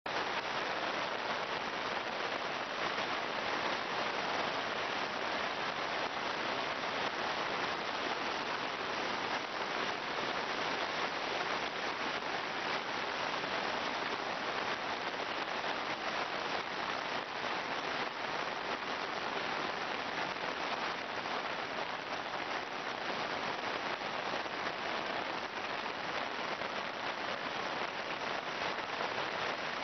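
Steady rushing of a swollen, muddy stream in flood, overflowing its banks, mixed with falling rain, at an even level throughout.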